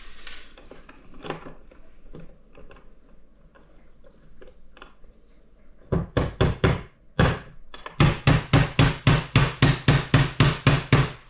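Hammer tapping a 2 mm pin punch to drive a roll pin back into a VW T4 door handle's lock barrel. First come faint small clicks of handling the parts, then about halfway through sharp metal taps begin, settling into a steady run of about four taps a second.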